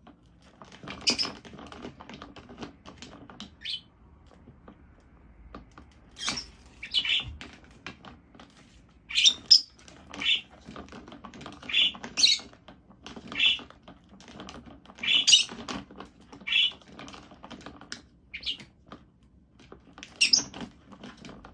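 Young parrot giving short high-pitched chirping calls, singly or in pairs every second or so with brief pauses, and soft clicking and scratching between them.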